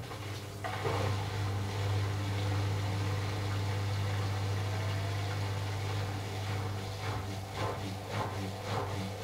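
AEG Lavamat washing machine during its final rinse: a steady low electrical hum comes on, and water begins rushing through the machine about half a second in, with soft sloshing strokes near the end.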